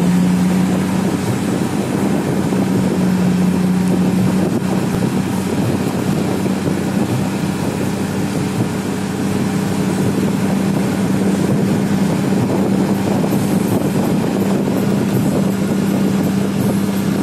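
Steady drone of a large road vehicle's engine cruising at highway speed, heard from inside beside the side window, over a constant rush of tyre and wind noise. The hum holds one pitch, stepping up slightly about four seconds in.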